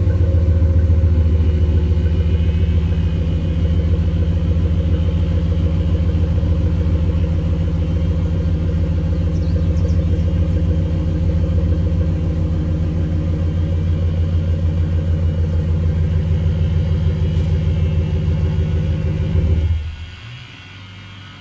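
Ram pickup's engine idling steadily through a Flowmaster 40 Series muffler, a deep, even exhaust note. Near the end the sound drops away suddenly, as the engine is shut off.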